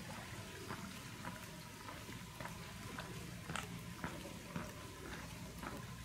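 Footsteps on stone paving at a walking pace, about two steps a second, over a low steady rumble.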